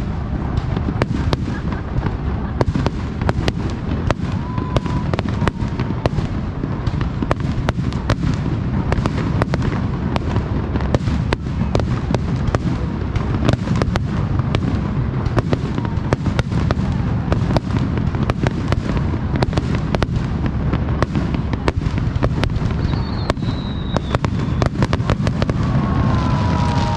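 Aerial fireworks display: a dense, continuous barrage of shell bursts and crackling with no break.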